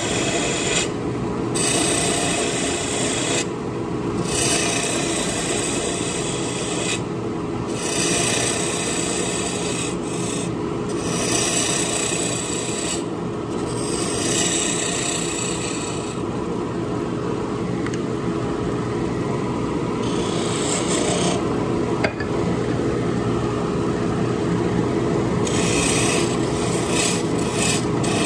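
Wood lathe humming steadily while a hand-held turning tool cuts a spinning wooden duck-call barrel to shape its flared end. The cutting hiss comes and goes as the tool is lifted off and set back on the wood, with a few short breaks.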